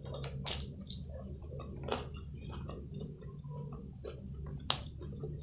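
Close-up eating sounds of fried noodles: wet slurping and chewing with small mouth clicks. Near the end, a sharp clink of a metal spoon against the ceramic plate is the loudest sound.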